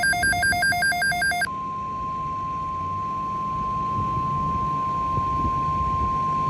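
NOAA Weather Radio alert broadcast: a short burst of rapidly pulsing electronic data tones, then the steady 1050 Hz warning alarm tone held as one long beep over faint radio static, the signal that a weather alert message follows.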